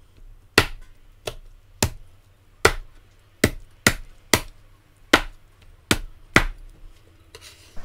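Kitchen knife chopping poached chicken into pieces on a plastic cutting board: about ten sharp chops at an uneven pace, roughly one every half second to second.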